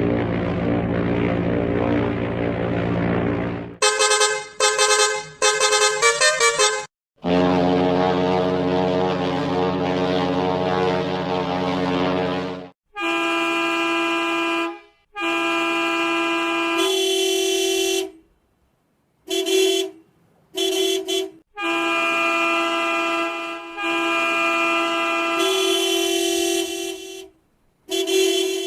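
A series of edited bus horn sound effects. First come long, low horn chords, each several seconds, with a stretch of rapid stuttering toots between them about four seconds in. After about thirteen seconds come higher-pitched horn blasts of varying length, some long and some short toots, separated by brief silences.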